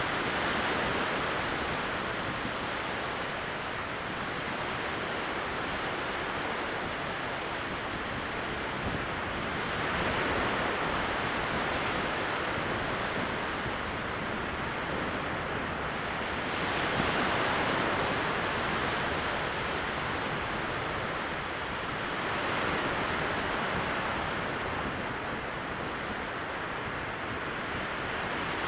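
Small sea waves breaking gently along a distant waterline across flat sand at very low tide: a steady wash of surf that swells and eases every several seconds as each wave breaks.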